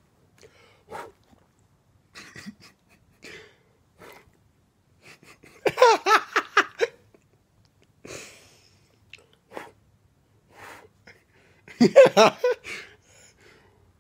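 A person laughing in two short bursts, about six seconds in and again near the end, with fainter snuffling and licking noises from a small dog at their face between them.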